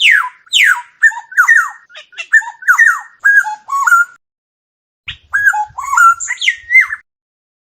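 Oriole calling: a rapid string of squawky, falling and rising whistled phrases that opens with two sharp descending squeals. The calling breaks off briefly a little after 4 s, then resumes in a second bout.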